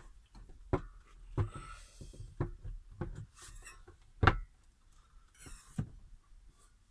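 A solar charge controller being fitted onto a wooden wall panel over its mounting screws: about six separate knocks of the unit against the wood, the loudest about four seconds in, with short scrapes between them.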